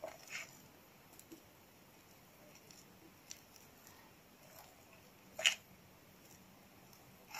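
Hands smearing a wet fenugreek spice paste over a piece of beef in a steel bowl: faint, soft squishing with a few light ticks, and one short, sharper squelch about five and a half seconds in.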